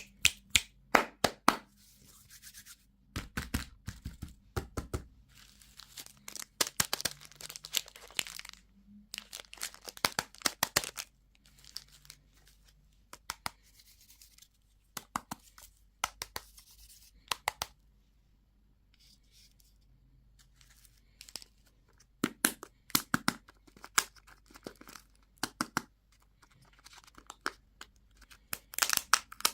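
Candy wrappers and packaging being torn and crinkled open by hand, in repeated bursts of sharp crackling separated by short pauses.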